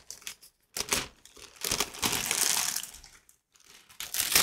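Parcel packaging being handled and opened, crinkling and rustling in several bursts, with a longer rustle in the middle.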